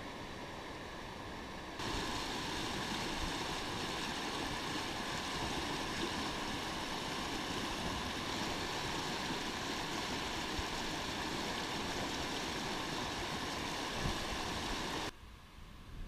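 Water of a small rocky creek rushing over boulders and through riffles, a steady wash. It gets louder about two seconds in and drops away abruptly to a quieter murmur near the end.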